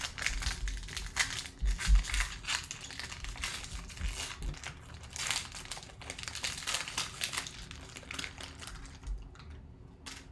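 Foil wrapper of a trading-card pack crinkling and tearing as it is ripped open by hand, an irregular crackle that thins out near the end.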